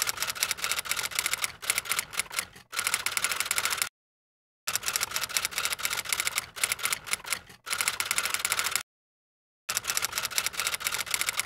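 Typewriter typing sound effect: rapid, dense key clicks in three runs of about four seconds each, broken by short silent pauses.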